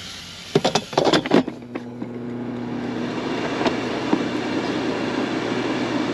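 Several clicks and knocks, then an air fryer's fan starts and runs with a steady hum that slowly grows louder.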